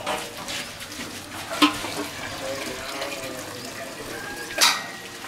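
Milk being poured from metal jugs through funnels, a steady splashing pour, with two sharp metallic knocks, one about a second and a half in and one near the end.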